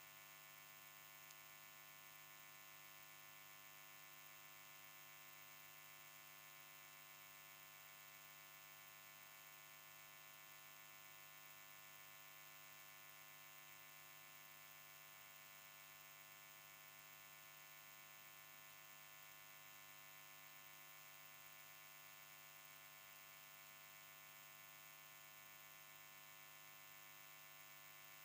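Near silence: only a faint, steady electrical hum and hiss, unchanging throughout.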